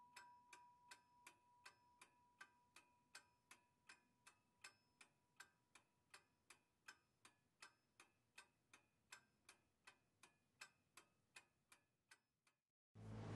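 Very faint, steady ticking, nearly three ticks a second, with a faint steady high tone that fades away over the first few seconds. The ticking stops shortly before the end, and a loud rushing noise starts abruptly at the very end.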